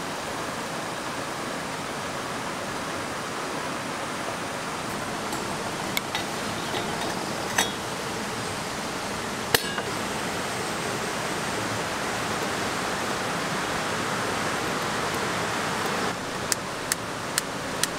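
Steady rushing of a stream beside camp, with a few sharp metallic clinks of a coffee percolator's parts being handled and a quick run of clicks near the end.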